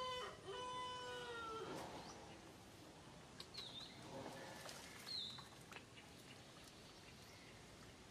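Newborn macaque baby crying: a drawn-out, high pitched cry that stops about a second and a half in. A few short high chirps follow later.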